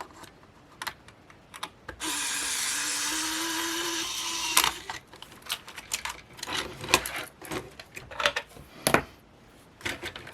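A small electric motor whirs for about two and a half seconds, its pitch rising slightly, amid light clicks and taps of small tools on the camera's plastic parts and screws.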